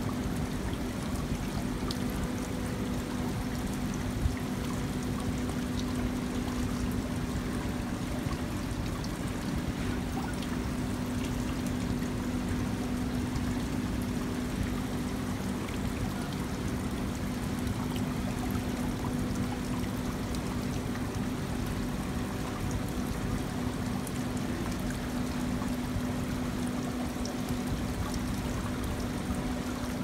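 Water trickling and splashing down a stacked-stone fountain wall into its basin, steady throughout, with a steady low hum underneath.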